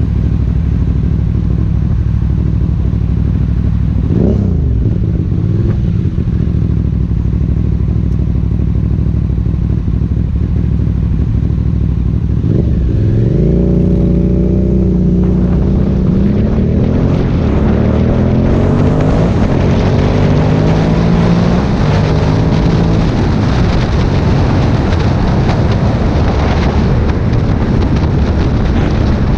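Aprilia Dorsoduro 750 V-twin with an Akrapovic exhaust idling steadily, then pulling away after about twelve seconds, its pitch rising in steps through the gears. Wind noise on the microphone builds as speed picks up.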